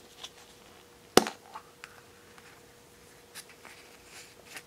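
Plastic surprise egg snapped open, one sharp click about a second in, then a few light ticks and rustles of the plastic halves being handled.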